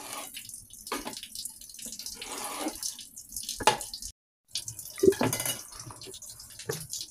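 A kitchen knife slicing a long eggplant on a wooden cutting board: a few sharp knocks of the blade striking the board, the loudest about five seconds in, over a steady hiss. The sound drops out briefly just after four seconds.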